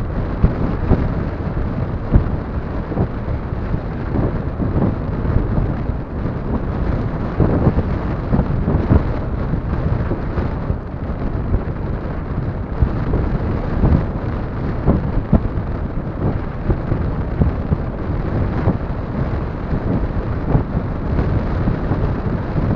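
Strong wind buffeting the microphone: a loud, low, rumbling noise that rises and falls in irregular gusts.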